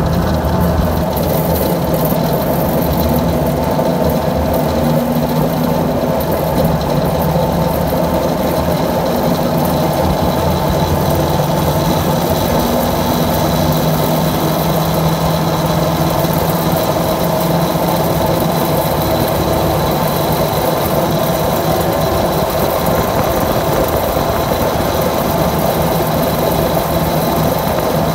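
A steady engine hum at a constant pitch.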